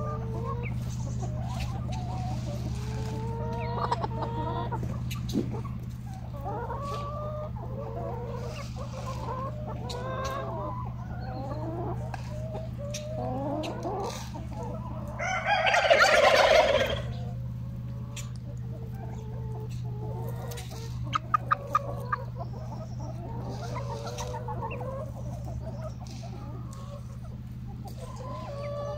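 A flock of chickens clucking continuously as they feed, with a loud rooster crow of about two seconds around the middle and a quick run of sharp clicks a few seconds later.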